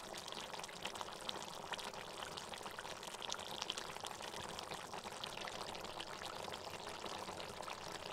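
Small-fish curry simmering in a metal pan: the thick sauce bubbling with a steady stream of small pops.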